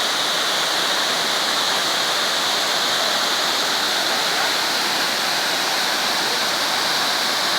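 A waterfall rushing with a steady, even roar of falling water that does not change.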